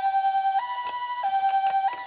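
Electronic two-tone hi-lo siren of a toy ambulance, alternating between a higher and a lower note about every half second, in the style of a Japanese ambulance siren. A few light clicks sound over it.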